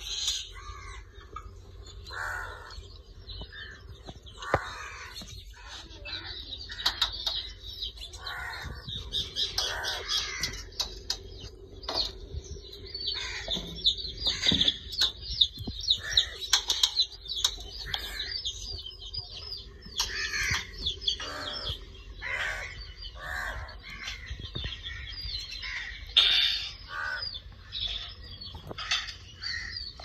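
Green pet parrot chattering with many short, rapid chirps and squawks, with scattered sharp taps between the calls.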